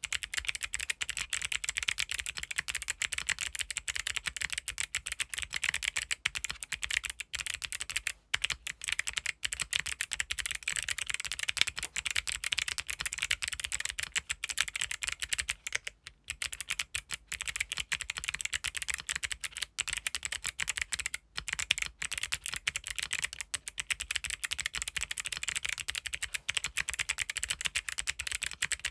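Fast continuous typing on a gasket-mounted mechanical keyboard with Kailh Box White V2 clicky switches on a polycarbonate plate: a dense stream of sharp, high keystroke clicks with only brief pauses.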